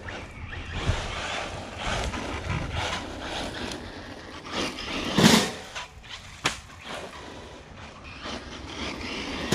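Electric RC buggy being driven over dirt and grass: its motor and tyres on the ground make a steady noise, broken by one loud knock about five seconds in and a smaller click a second later.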